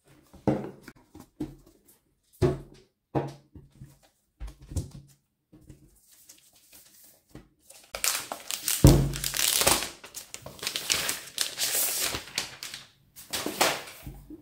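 A few short knocks and taps as things are handled and set down on a wooden table, then from about eight seconds in the clear plastic protective film on a new MacBook Air crinkling as it is handled and pulled off, with one heavy thump as the laptop is moved.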